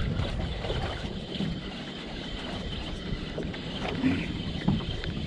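Wind buffeting the microphone over the steady wash of water around a small open boat at sea.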